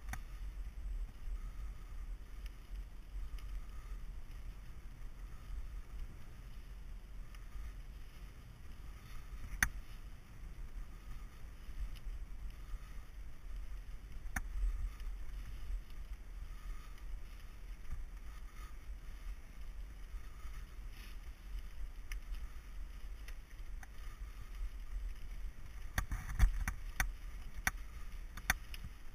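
Mountain bike rolling along a gravel forest singletrack: a steady low rumble of the tyres on the trail, with occasional sharp clicks and rattles from the bike over bumps, several close together near the end.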